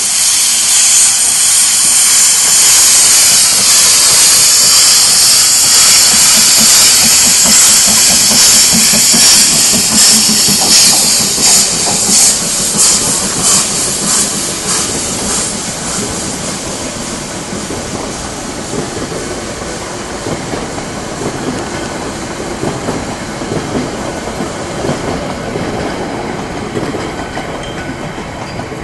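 HSB metre-gauge steam locomotive 99 7232-4 pulling away on full throttle, with a loud hiss of steam from its open cylinder drain cocks and exhaust beats coming through. After about fifteen seconds the hiss dies down and the coaches roll past with a steady rumble and clatter of wheels on the rail.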